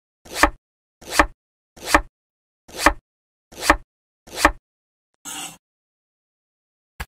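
A serrated knife slicing a cucumber on a wooden cutting board: six cuts, about one every 0.8 seconds, each a short crunch ending in a knock on the board. A short burst of noise follows about five seconds in.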